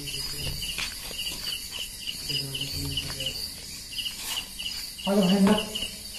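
Crickets chirping in a steady, even pulse, about four short high chirps a second, over a steady high hiss. Low voices come in briefly near the end.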